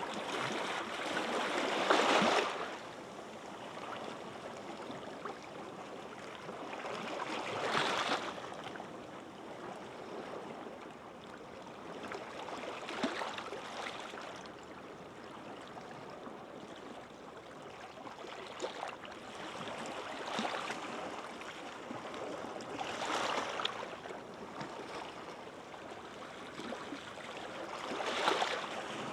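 Small sea waves breaking gently and washing up the beach, a swell surging and fading every few seconds over a steady hiss of surf.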